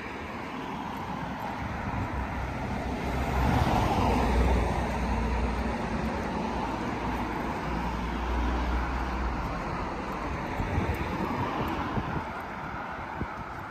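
Road traffic: cars passing on a busy road, with tyre noise and low engine rumble. It is loudest as a vehicle passes about four seconds in, and a second, weaker pass follows near the middle.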